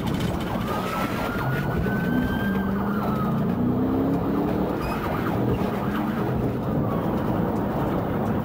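Police car siren wailing, rising slowly and then falling once over the first few seconds, above the steady engine and road noise of the pursuing patrol car.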